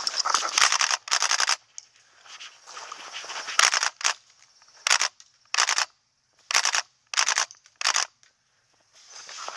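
WE gas-blowback Thompson airsoft gun firing full-auto: a longer burst, then about six short bursts under a second apart, each a rapid string of sharp clacks from the bolt cycling.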